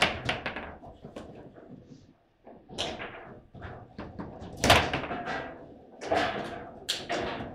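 Table football in play: a string of sharp knocks and clacks as the ball is struck by the plastic men and hits the table walls, and the rods are slammed and spun. A short pause about two seconds in; the loudest crack comes about halfway through.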